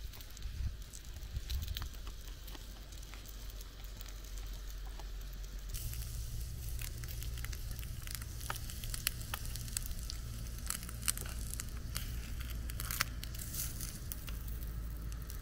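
A knife sawing through a crusty seeded bread roll. About six seconds in, small sausages sizzling in a pan over campfire embers, with crackling from the fire.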